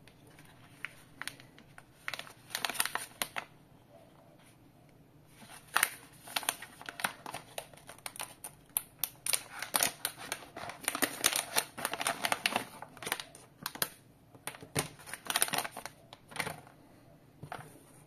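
Clear plastic packaging bag crinkling and crackling as it is pulled open by hand, in irregular bursts of rustling that are busiest through the middle and thin out near the end.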